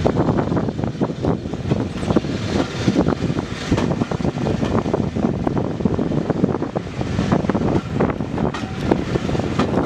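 Railway coach running along the track: steady wheel-on-rail running noise with an irregular clatter of knocks and rattles.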